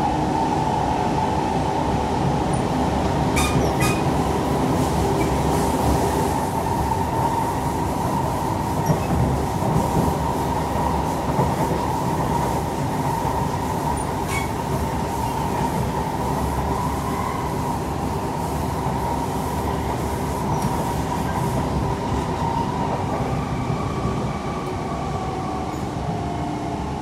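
Siemens C651 metro train running along the track between stations: steady wheel-on-rail running noise with a steady high tone over it, and a few light clicks.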